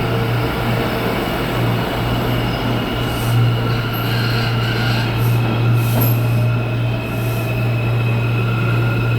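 New York City subway train running, with a strong steady low hum and several brief high-pitched wheel squeals in the middle.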